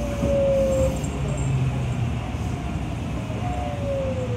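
Kintetsu Yoshino Line train running along the track, heard from inside the front cab: a steady rumble of wheels on rail. A humming tone slides slowly down in pitch near the start, and again near the end.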